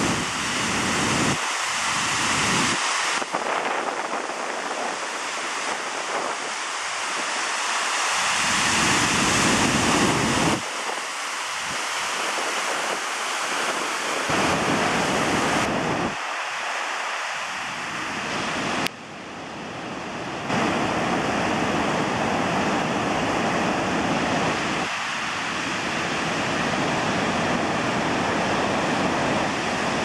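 Steady rushing noise of large waterfalls, with gusts of wind on the microphone at times. The sound shifts abruptly several times as the recording cuts from one fall to another.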